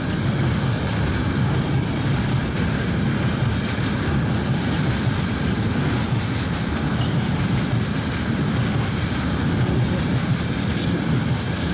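Container freight train rolling past on its flat wagons: a steady, loud rumble of steel wheels on the rails.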